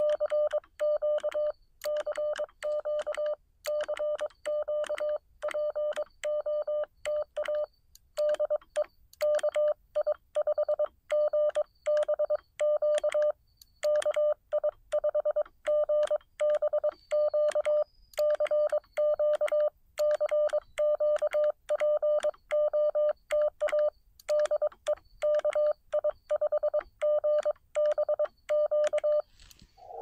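Morse code (CW) keyed on a Xiegu X6100 transceiver, heard as its sidetone: a single steady tone switched on and off in dots and dashes throughout, with faint clicks at the key strokes. The operator is checking whether the frequency is in use and calling on the air.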